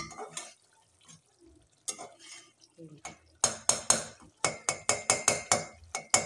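Metal spatula stirring and scraping a thick frying masala in an aluminium pot. It knocks against the pot's side a few times at first, then in a quick run of ringing clanks about five a second from about three and a half seconds in.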